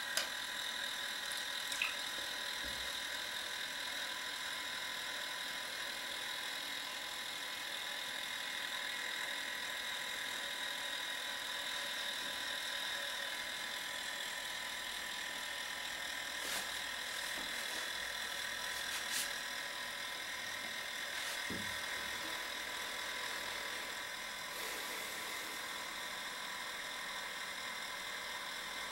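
Small electric ballast pump of a model submarine's watertight cylinder running with a steady whine, pumping the ballast tank dry.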